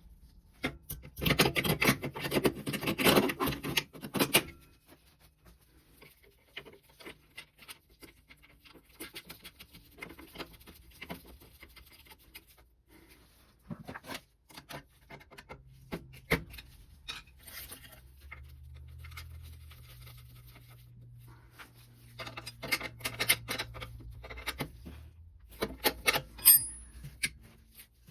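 Hand work on oil burner parts: rubbing and scraping with small metal clicks and clinks, loudest for a few seconds near the start and again near the end.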